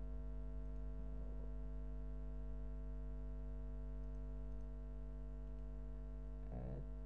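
Steady electrical mains hum in the recording chain, with two brief faint murmurs, one about a second in and one near the end.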